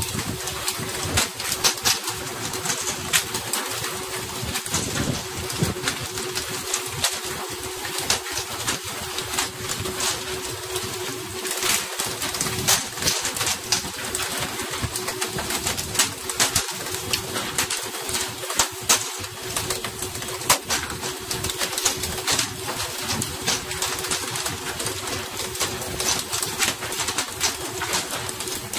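Fishing boat under way at sea: a steady low engine hum under a rushing noise of wind and spray, with frequent short clicks and knocks.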